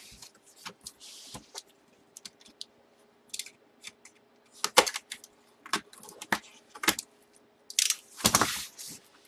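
A sealed cardboard box being opened: a blade slitting the security-seal tape and cardboard, with scattered clicks, scrapes and rustles of the handled box. About eight seconds in, a longer tearing sound as a strip of the seal tape is pulled off.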